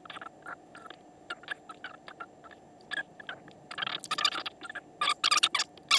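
A Sharpie marker drawing on gridded paper: a quick series of short scratchy dashes, then longer, louder strokes from about four seconds in.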